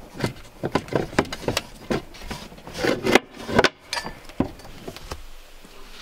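Handling knocks and rubbing as a floor storage hatch lid in a camper van is lowered and settled into its opening: a run of irregular knocks and taps, loudest a little after three seconds in, then quieter.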